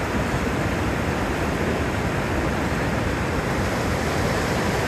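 Steady rushing of a rocky mountain river flowing over rapids.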